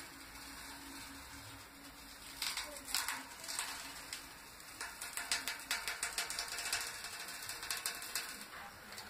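Tape being peeled slowly off fresh spray paint, giving a quick, irregular ratchet-like crackle. It comes in short spells from about two and a half seconds in, then runs almost without a break through the second half.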